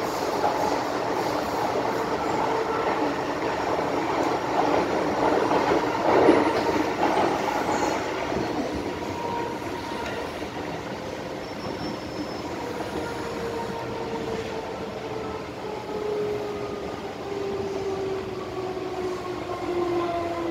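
MTR Island Line M-Train running, heard from inside the car: wheels rumbling and clattering on the rails, with a louder clatter about six seconds in. From about nine seconds the traction motors give off a steady whine, the enthusiasts' "ghost howl" (鬼叫), which falls slowly in pitch as the train slows.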